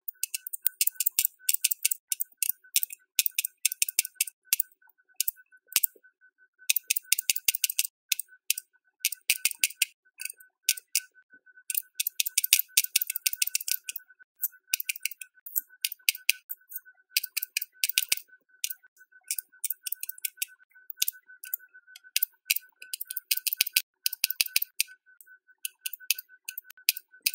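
Plastic Aquabeads bead-dispenser pen clicking rapidly as it places beads onto the bead tray, in quick runs of clicks broken by short pauses.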